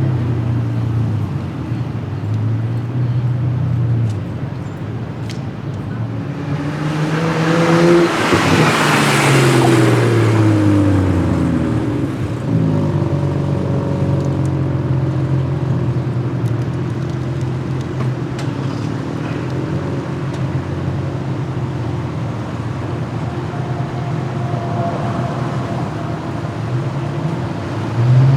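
A car engine running at a steady idle, with a couple of short revs near the start and another near the end. A louder car drives past between about seven and eleven seconds in, its engine pitch sweeping as it goes by.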